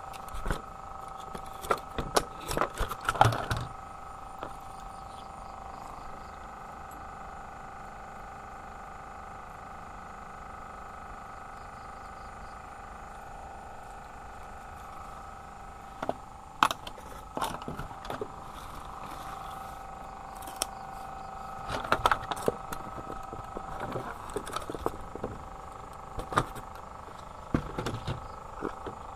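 Several short clusters of sharp knocks and rattles, over a steady two-tone background hum.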